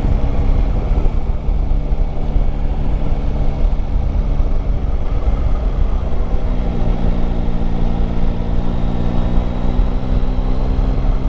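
Yamaha Tracer 9 GT's 890 cc inline-three engine running at a steady cruise, with wind rumble on the microphone. The engine note blurs about five seconds in, then holds steady again at a new note.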